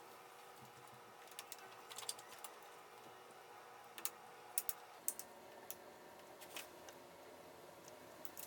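Scattered light clicks and taps of small engine parts being handled and fitted back in place during reassembly, coming in loose clusters, over a faint steady hum.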